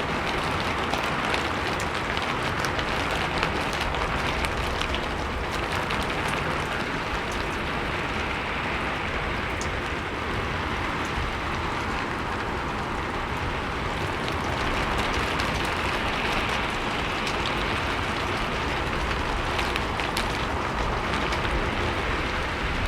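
Steady rain falling on a roof: an even hiss with many small, sharp drop ticks.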